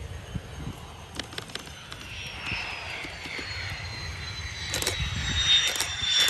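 Jet engine of an F-16 Fighting Falcon landing and rolling out, a high whine that slowly falls in pitch while the jet noise grows steadily louder from about two seconds in.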